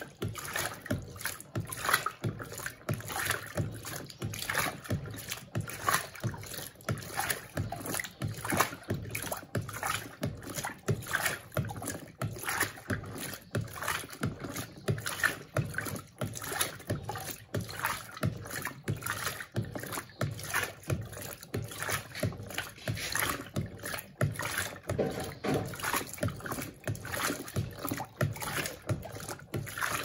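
Electrolux Turbo Compacta 7 kg (LTC07) top-loading washing machine agitating a load of bed linen in water. It gives a rhythmic sloshing and splashing in quick, regular strokes as the agitator swings back and forth.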